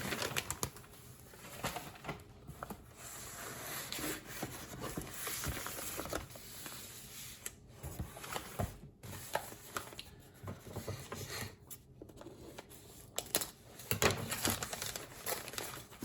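Wrapping around a mail-order orchid plant being handled and pulled off: irregular rustling and crinkling with scattered small clicks and taps.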